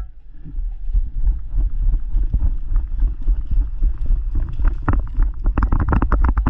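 Wind buffeting the microphone as a low, steady rumble. Short knocks or rustles come thicker and faster in the last two seconds.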